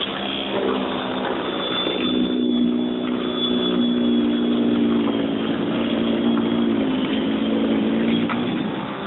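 Battery-powered EGO 21-inch single-stage snowblower running steadily while it takes in and throws powder snow. Its motor hum dips slightly in pitch about two seconds in, as if loaded by the snow, and comes back up near the end.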